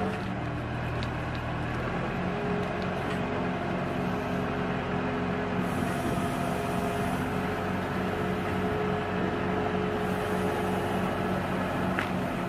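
A wheel loader with a hydraulic manhole ring cutter on its front runs steadily, a machine hum holding several steady notes and a low pulsing one, as the cutter is lowered over the manhole.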